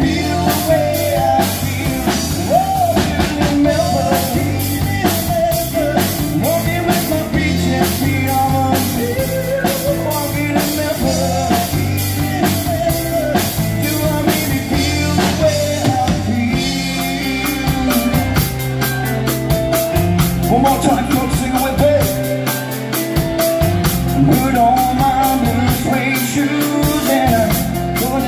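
Live pop-rock band playing: drum kit, keyboard and guitar under a sung melody. About halfway through the beat changes to a crisper, steady cymbal pattern.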